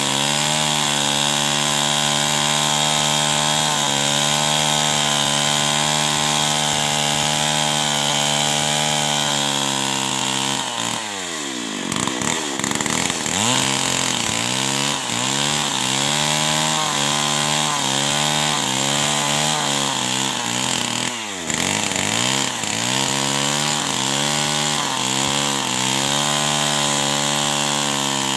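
Two-stroke chainsaw engine held at high revs for about ten seconds, then dropping sharply and being revved up and down over and over, with a second sharp dip about twenty-one seconds in before more revving.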